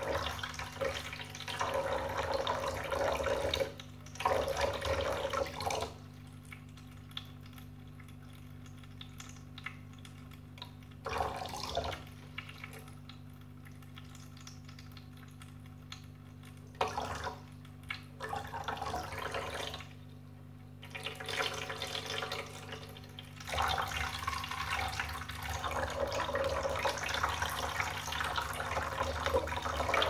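Drinkwell Platinum pet fountain running: water from its spout trickles into the bowl over the steady low hum of its electric pump. The splashing swells in spells, in the first few seconds, briefly twice mid-way and again over the last several seconds, as a Maine Coon cat drinks from the falling stream and breaks it with its face.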